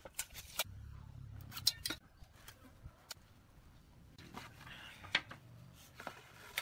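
Workshop handling sounds from a steel tape measure and pine boards on a concrete floor: a few sharp clicks and light knocks in the first two seconds over a faint low hum, then scattered ticks and a short soft scratch, as of a pencil marking the wood, about four and a half seconds in.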